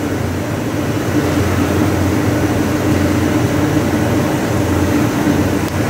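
Steady mechanical hum with a low droning tone, unbroken and even in level.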